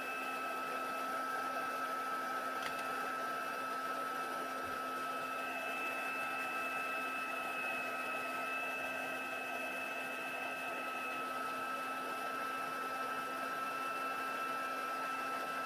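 Stampin' Up! heat tool (a crafter's heat embossing gun) running steadily, its fan blowing hot air with a constant hiss and a high whine, melting embossing powder.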